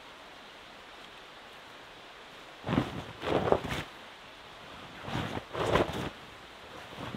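Heavy canvas tent fabric rustling and flapping as it is lifted, gathered up and shaken out by hand, in three bouts of about a second each, over a steady background hiss.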